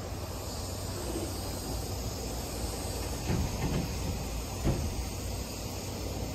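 Steady low rumble of a semi truck's diesel engine running, with a high hiss over it and a few dull knocks around three and four and a half seconds in.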